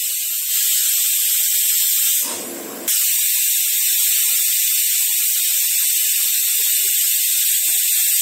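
Stovetop pressure cooker whistling: steam hisses loudly out under the weight valve as the cooker reaches full pressure. The hiss falls away briefly a little after two seconds in, then comes back just as strong.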